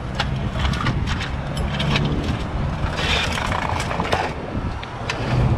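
Scrapes and clicks as a fallen stand-up scooter is handled and lifted off the road, over a low steady rumble.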